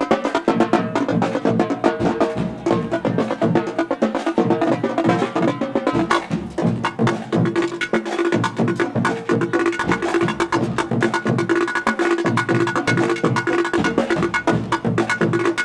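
Marching band drumline playing a fast cadence on snare and bass drums: dense, rapid stick strokes over regular bass-drum beats.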